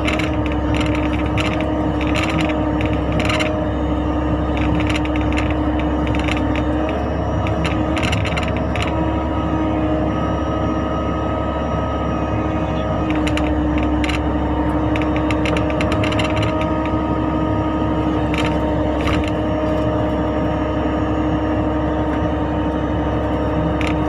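Mini excavator running steadily as it works, with a held mechanical tone that drops away and comes back several times as the load changes. Scattered short clanks and rattles of metal parts sound over it.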